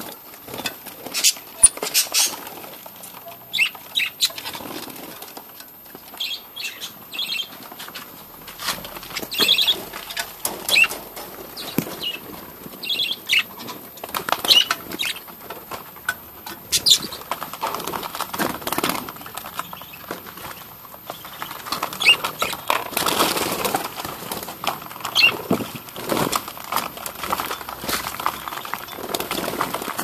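A flock of budgerigars fluttering their wings and giving short, high chirps, mixed with many small clicks.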